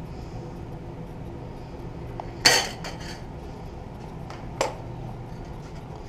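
Sheet-metal pieces and hand tools clanking. There are two sharp metallic clanks, a louder ringing one about two and a half seconds in and a lighter one about four and a half seconds in, over a steady low hum.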